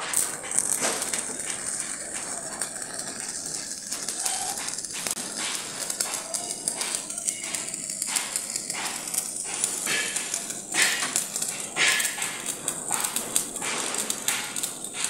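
Stick-welding (manual arc welding) arc on steel plate, crackling steadily and irregularly as the electrode burns along a seam, with a few sharper pops now and then.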